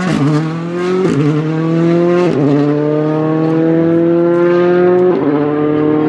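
Ford Fiesta Rally2 car's turbocharged 1.6-litre four-cylinder accelerating hard away from a standing start. The engine note climbs through each gear, with quick upshifts about one, two and five seconds in.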